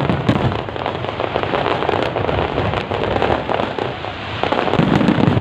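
Fireworks going off: a dense, continuous crackle of rapid pops with deeper booms near the start and again near the end.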